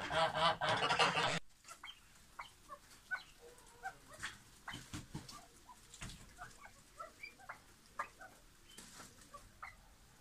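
A flock of lemon (yellow) golden pheasants giving scattered soft, short chirps and clucks. It opens with a louder, harsher sound that cuts off abruptly about one and a half seconds in.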